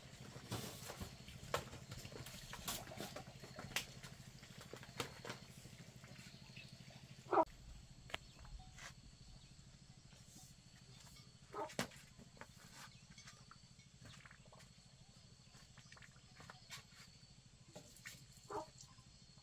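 Short animal calls, four of them a few seconds apart, over scattered light clicks and knocks.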